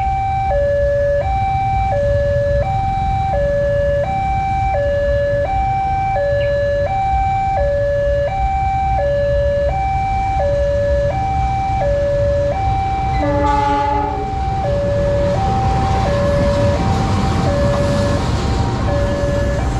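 Railway level-crossing warning alarm sounding a steady two-tone electronic ding-dong, switching between a higher and a lower note about every 0.7 s. About 13 seconds in, a diesel locomotive gives a short horn blast. Then the rumble and wheel noise of a passing commuter train rise under the alarm.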